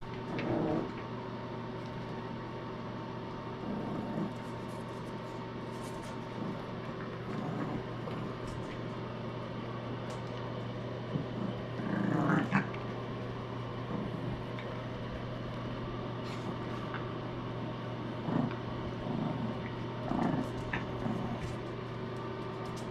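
Yorkshire terrier puppies growling and yipping in play, in short scattered bursts, the loudest about twelve seconds in, over a steady low hum.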